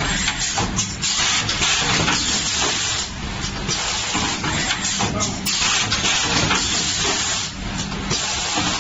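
Youngsun automated packing machine running: a steady hiss over low mechanical running noise, with louder hissing surges about every two seconds.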